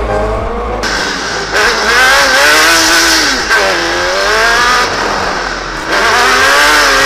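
Rage R80T buggy's engine revving up and down, its pitch rising and falling several times as it is driven around the track, heard from on board.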